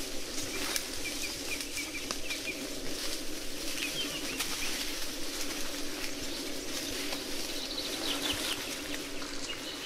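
Rainforest ambience: a bird repeating short high chirps over a steady low drone, with scattered faint rustles and clicks from the branches.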